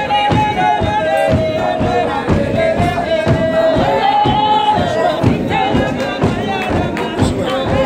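A congregation singing together in long held notes over a steady rhythmic beat of about two to three strokes a second.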